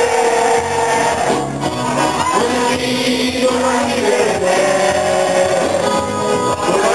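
A live band playing sega music, with a singer holding long, gently bending notes over the band.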